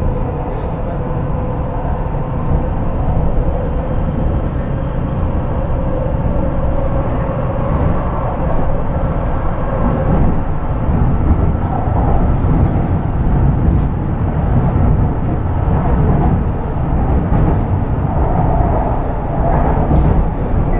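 Shanghai Metro Line 7 type 07A02 electric train running at speed, heard inside the passenger car: a steady low rumble with a faint whine that fades out about halfway through.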